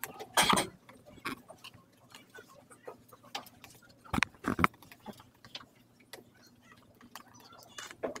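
Handling noise: scattered rustles and small knocks, with louder bumps about half a second in and twice around four seconds in.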